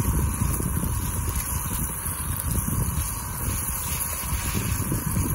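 Fire-Maple canister gas stove burning steadily under a skillet of bacon, a low rumbling roar with the bacon sizzling over it.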